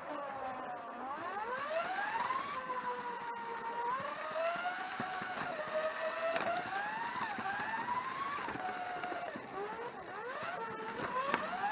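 A 1/24-scale slot car's electric motor whining as it laps a Carrera track, the pitch repeatedly climbing and then dropping sharply.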